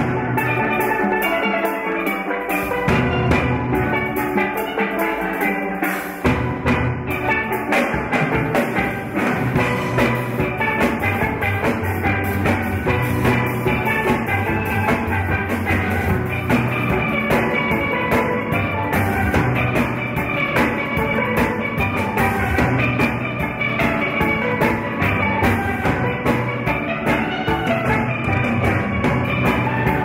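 Steel orchestra playing a tune: many steelpans ringing out the melody and chords over a steady drum beat, with the low end growing fuller about six seconds in.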